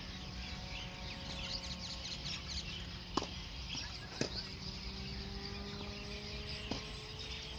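Birds chirping steadily among the trees, with three sharp tennis-ball hits: two about a second apart a few seconds in, and one near the end.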